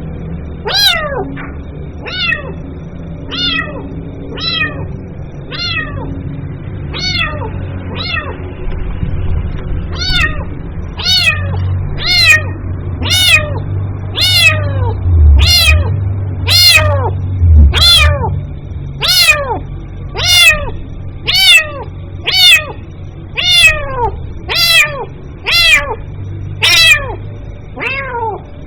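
Kitten mewing over and over, short high-pitched calls that each fall steeply in pitch, about one a second, growing louder and more regular partway through: a kitten calling for its mother.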